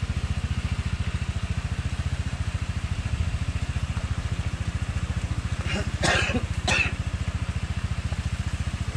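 Motorcycle engine idling close by, a steady, even low pulsing. Two short, louder sounds break in about six and seven seconds in.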